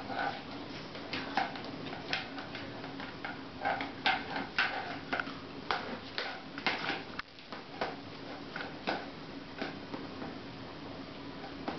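A beagle puppy playing roughly with a rubber chicken toy on a tile floor: irregular clicks, taps and knocks from its claws and the toy striking and scraping the tiles, coming in quick flurries.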